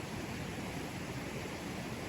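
A mountain forest river flowing over rocks: a steady, even rush of water.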